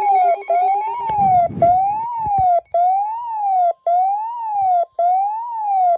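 Electronic siren wailing: a single clear tone sweeping up and down about once a second, with short breaks between sweeps. A faint steady high tone joins about two-thirds of the way through.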